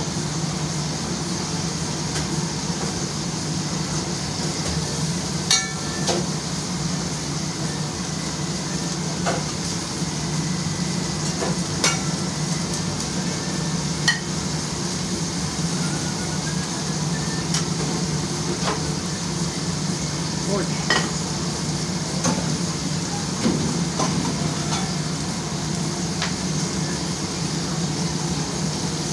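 Food sizzling in hot oil on a cooktop, a steady hiss over a steady hum, with a few short sharp clicks of utensils scattered through it.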